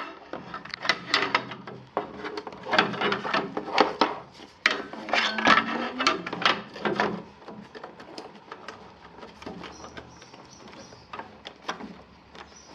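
Clicks, knocks and rattles of hard parts being handled during elliptical assembly, dense for about the first seven seconds, then sparser.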